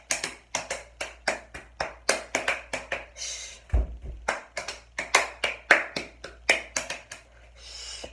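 Hands clapping in a quick, uneven rhythm, about three to four claps a second, with two short hissing sounds in between.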